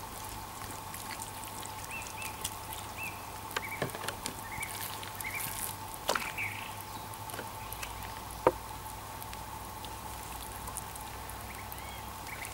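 Vegetable oil pouring from a plastic bottle onto a raw chicken on a wooden board, broken by a few sharp knocks and slaps as the bottle is set down and the bird is turned over. Short chirps and a faint steady tone sound behind.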